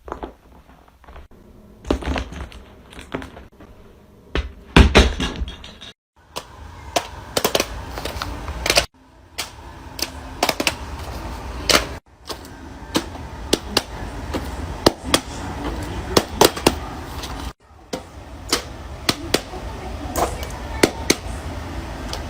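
Silicone pop-it fidget toys being pressed quickly by hand: a run of irregular soft pops and thunks, in several short bursts with abrupt breaks between them.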